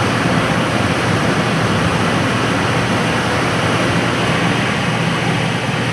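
Steady rushing air with a low hum from the blower of a powder-coating curing oven.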